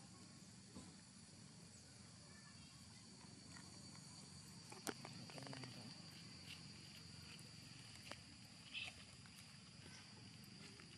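Near silence: a faint, steady high insect drone, with a few soft clicks and rustles of dry leaves, the sharpest about five seconds in.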